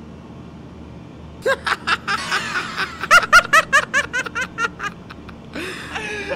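Men laughing heartily, a rapid string of 'ha-ha' bursts starting about a second and a half in, then a second burst of laughter near the end.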